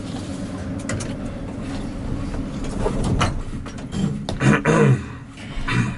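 Elevator car running between floors, a steady low hum and rumble with small rattles and clicks. About four seconds in, a brief voice sound breaks in, the loudest moment, with a shorter one just before the end.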